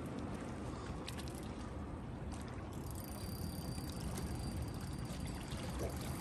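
Steady wash of sea water lapping against jetty rocks, with a low rumble underneath.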